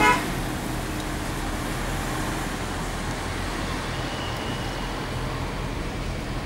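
Steady engine hum and road noise of a moving vehicle, heard from inside the cabin, with a short horn toot right at the start and a faint distant horn about four seconds in.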